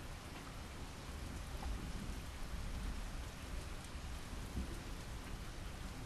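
Steady rain falling, with a low rumble of thunder swelling through the middle.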